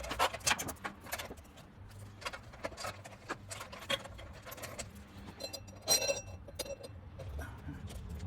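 Metal roller chain clinking and rattling in irregular clicks as it is handled and fitted onto a minibike's sprockets, with a louder ringing metallic clink about six seconds in.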